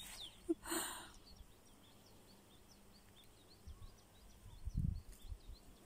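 Quiet outdoor background with a small bird chirping over and over, short high chirps. A few low thumps come about five seconds in.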